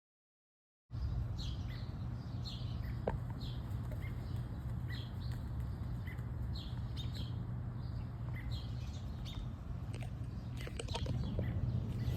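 Small birds chirping in short, scattered calls over a steady low rumble of outdoor background noise, after about a second of dead silence at the start.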